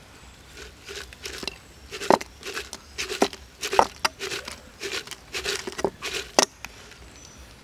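Cooked shrimp tumbling out of a clay pot into a plastic bowl: a run of light pattering taps and clatters that ends about six and a half seconds in, the loudest knocks about two seconds in, near four seconds and at the end.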